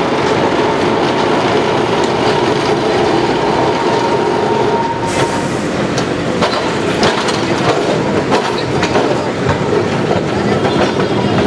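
Kolkata tram, an articulated two-car tramcar, running slowly round the curved track of a turning circle, its wheels clattering and clicking on the rails. A thin steady whine during the first five seconds, typical of wheel flanges on a curve.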